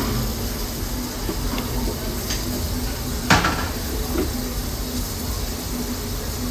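Steady hiss and rumble around a standing Baldwin-built steam locomotive, with one sharp knock about three seconds in and a few faint clicks.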